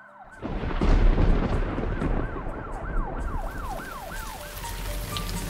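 An emergency siren wailing in quick, repeated rising-and-falling sweeps. About half a second in, a loud rumble of thunder breaks in, and a few seconds later the hiss of heavy rain joins.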